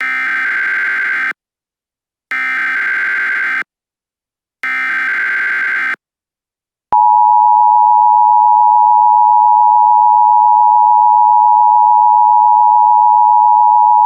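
Emergency Alert System SAME header: three buzzing data bursts of about a second and a half each, with short gaps between them. About a second later the EAS two-tone attention signal starts, a steady piercing tone held to the end.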